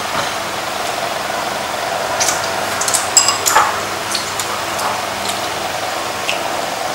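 A steady mechanical hum, like a small motor running. Over it come a few light clinks of chopsticks against dishes, about two to three and a half seconds in.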